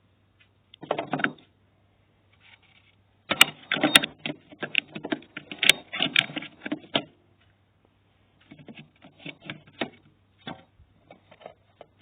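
Handling noise of plastic parts: quick clicks and rattles in bursts. There is a short burst about a second in, a dense run of clicking in the middle, and scattered clicks near the end. The vacuum cleaner is not running.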